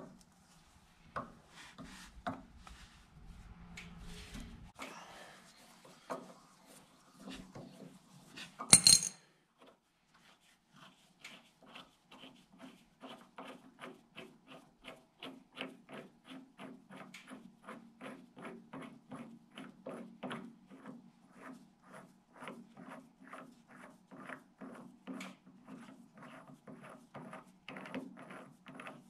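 A steel 5/8-inch grade 8 bolt being worked in freshly tapped threads in the nose of a Wisconsin VH4D engine's crankshaft. A wrench clicks and scrapes at first, with one sharp metal clank about nine seconds in, then comes an even run of short thread-on-thread scrapes, about three a second, as the bolt is turned by hand.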